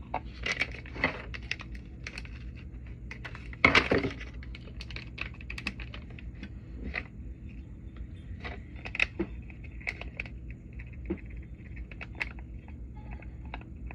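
Crinkling and rustling of a small plastic packet of baking soda being opened and handled, with scattered light clicks and taps; loudest about four seconds in.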